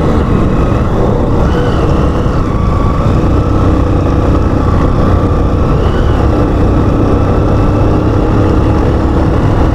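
Motorcycle engine running steadily while under way, mixed with wind noise on the microphone.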